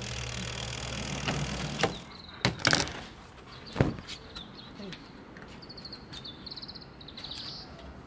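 Small twin-tub washing machine's stainless spin-dryer basket running on its final spin, a steady motor hum with a whoosh that stops about two seconds in. A few sharp knocks follow, and in the second half a small bird chirps in quick, high trills.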